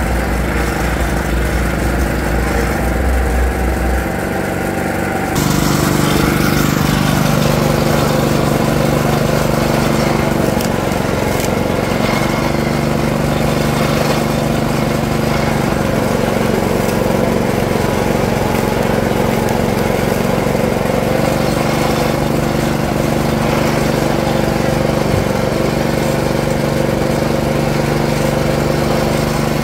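Motorised sugarcane juicer running, its belt-driven steel rollers humming steadily as peeled sugarcane stalks are fed through and crushed. About five seconds in, the sound grows louder and noisier and stays so.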